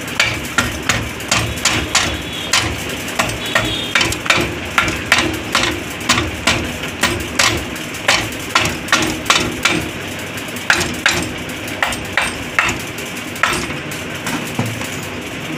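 Repeated hammer taps on a Karizma R engine's crankcase half, about two a second, driving it down onto the other half to seat it over the gasket; the tapping thins out near the end. A steady low hum runs underneath.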